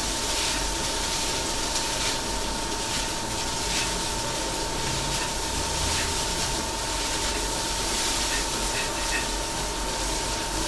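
Fried rice sizzling in a wok on an induction wok cooker: a steady hiss with a few light spatula scrapes, over a steady high whine from the induction cooker.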